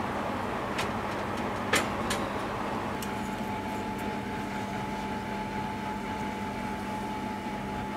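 Electric oven's fan running with a steady hum while a baked loaf in its metal tin is pulled out over the wire rack, giving a few light metal clinks in the first two seconds. A thin steady tone joins the hum about three seconds in.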